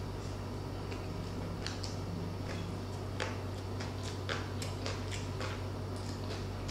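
Close-miked chewing of a mouthful of crispy pork and rice eaten by hand: irregular wet smacks and crunchy clicks. A steady low hum sits underneath.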